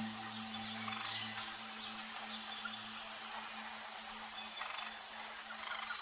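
Rainforest ambience: a steady high-pitched insect chorus with scattered faint chirps, over a soft sustained low music tone.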